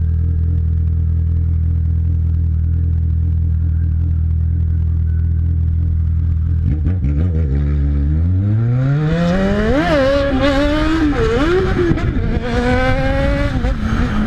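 Jaguar XJ6 car engine idling steadily, then about seven seconds in the revs climb and it is revved up and down several times.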